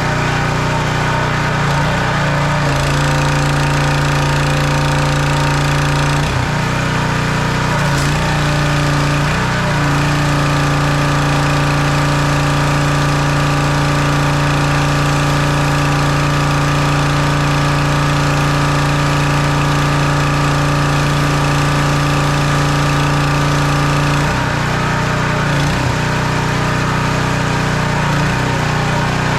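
Simpson gas pressure washer's small engine running steadily, its note shifting and briefly dipping a few times, about 3, 6, 10 and 24 seconds in, as the load on it changes.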